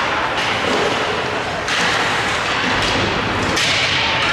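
Game noise in a large echoing hall: a dull thud over steady crowd noise, with a few brief louder swells.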